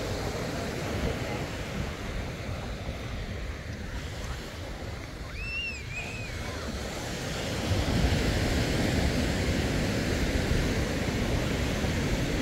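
Surf washing onto a beach, with wind on the microphone, growing louder about two-thirds of the way through. A short two-note high chirp sounds about halfway through.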